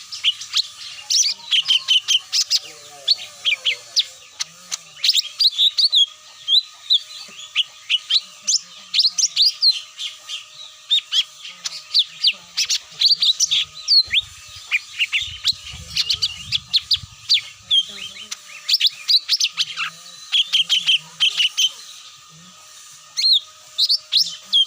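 Cucak mini bird calls played as a lure (pikat) to draw wild birds down: rapid, high, sharp chirps in quick bursts, with a short pause near the end. A faint steady hum runs underneath.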